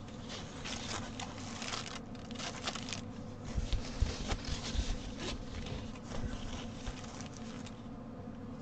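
Rustling and crinkling of a printed cross-stitch canvas as it is handled and shifted about, with a few soft bumps about four seconds in.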